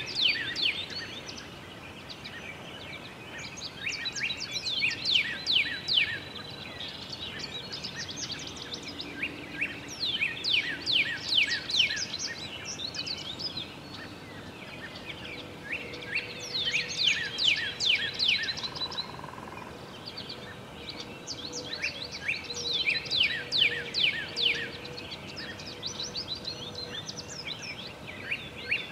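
A songbird singing in repeated bursts of quick, steeply falling notes, each burst about two seconds long and coming roughly every six seconds, over a steady background hiss.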